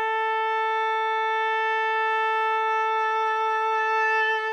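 Solo oboe holding one long, steady note, swelling slightly near the end.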